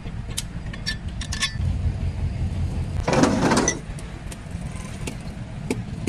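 Metal parts clinking in sharp single clicks over a steady low rumble, with a short loud rush of noise about three seconds in, during heavy-equipment undercarriage repair work.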